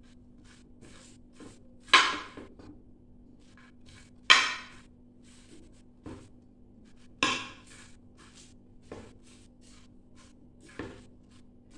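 Metal fork clinking and scraping against a metal pot as vegetables are tossed and mixed: three louder clanks that ring briefly, about two, four and seven seconds in, with softer taps and scrapes between.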